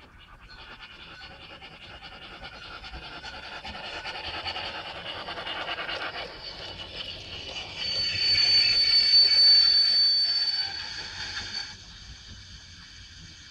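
Sound of an LGB Stainz garden-railway steam locomotive with an Uhlenbrock sound decoder, growing louder as it approaches with its train. Near the end a steady high-pitched tone sounds for about three seconds, then the sound drops off abruptly as the locomotive stops.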